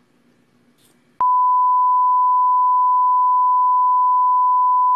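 Steady 1 kHz reference test tone, the kind that goes with colour bars: one loud unbroken pure tone that starts suddenly about a second in, after faint room tone.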